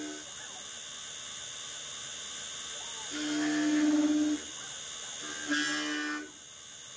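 DIY CNC lathe machining a part with a live milling tool: a steady high-pitched whine from the machine, joined by a humming motor tone that comes and goes along with the hiss of the cut. The hum is longer and louder about three seconds in and shorter near six seconds.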